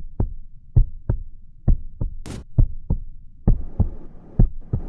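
Heartbeat sound effect: deep double thumps (lub-dub), about one beat a second. A single sharp click comes about two and a half seconds in.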